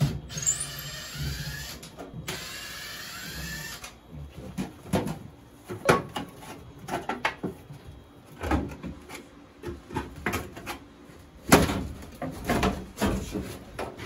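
A cordless power driver runs in two spells, its whine rising in pitch each time, while the old range hood is being taken down. Then a string of knocks and clatters as its parts are handled.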